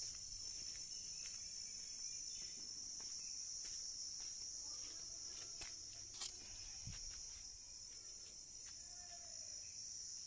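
Crickets trilling in a steady, high-pitched chorus, with faint bird chirps and a few sharp clicks, the loudest about six seconds in.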